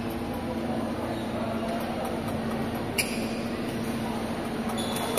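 Badminton racket striking a shuttlecock with a sharp crack about three seconds in, and again right at the end, over a steady mechanical hum in the hall.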